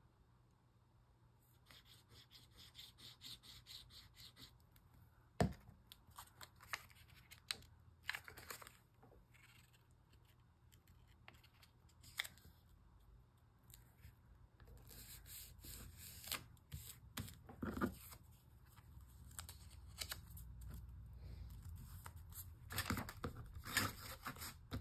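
Paper and card being handled and worked by hand: a quick run of scratchy strokes starting about two seconds in, a sharp knock about five seconds in, then scattered rustles and taps.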